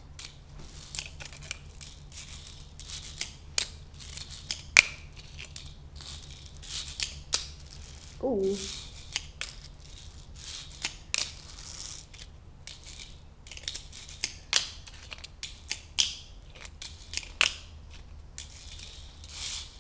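Fingerboard rolling and clacking on rough concrete: irregular sharp clicks and snaps from the deck and trucks hitting the ground, between short stretches of wheel rolling. About eight seconds in, a short falling voice-like 'ooh'.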